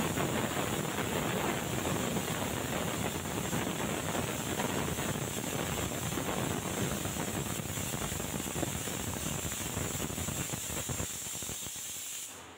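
Pressure cooker whistling: steam rushing out past the weighted valve on the lid in a steady loud hiss with a high whistle held through it, cutting off suddenly near the end. The cooker is at full pressure, and each such whistle is counted towards the cooking time.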